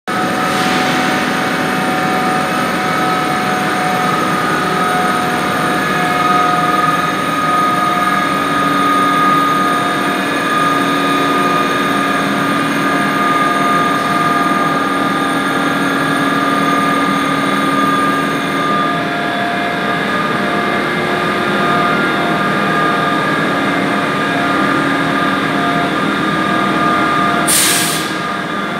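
SNCF BB 7200 electric locomotive with its Corail coaches pulling slowly away from the platform: a steady whine of several tones from its chopper traction equipment over the rumble of the moving train. A brief hiss comes about a second before the end.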